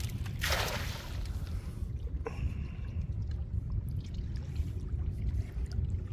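Water splashing and trickling as a cast net is worked from a small boat: a brief splash about half a second in, then dripping and trickling water over a steady low rumble.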